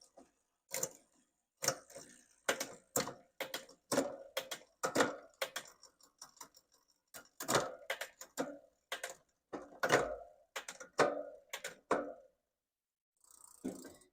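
Bicycle drivetrain pedaled by hand through the gears: the rear derailleur shifts the chain with a run of irregular sharp clicks and chain clatter, about one or two a second. The chain hangs up in some gears, which the mechanic puts down to too much cable tension at the barrel adjuster.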